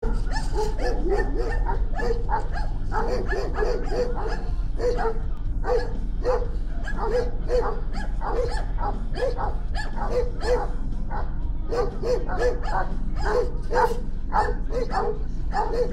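Eight-month-old large white dog barking over and over, about two or three barks a second, with a few short breaks, under a steady low hum.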